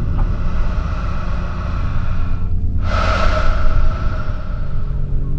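A low, steady rumbling drone with a breathy whoosh that swells up suddenly about three seconds in and then slowly fades.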